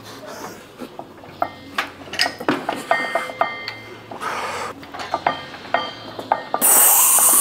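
Heavily loaded barbell being unracked from squat stands: the metal plates and bar clink and rattle in a string of sharp knocks, some ringing briefly. About six and a half seconds in, a loud, sharp hissing breath from the lifter as he braces under the bar.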